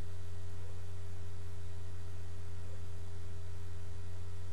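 Steady low electrical hum with a faint even hiss, the noise floor of a poor-quality recording microphone.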